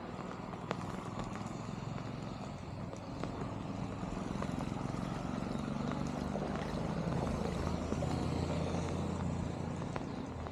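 An engine running steadily, growing a little louder in the middle and easing off near the end, with a few sharp clicks.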